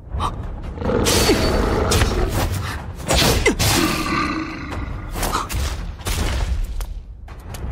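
Cartoon monster sound effects: a large horned beast roaring and growling, with heavy booms, in three loud surges.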